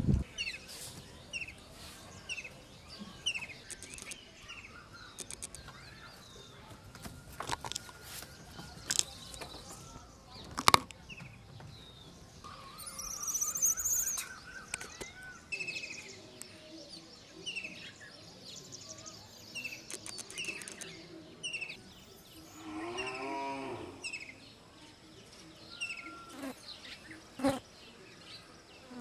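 Outdoor animal calls: short falling chirps repeated about once a second, a few sharp clicks, the loudest about ten seconds in, and two longer calls, a high one about halfway through and a lower, drawn-out one with many overtones about three-quarters of the way in.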